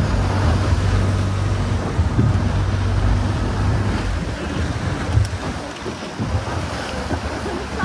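A small open boat's engine runs with a steady low hum while water splashes along the hull and wind buffets the microphone; the engine hum drops away about halfway through, leaving the rush of water and wind.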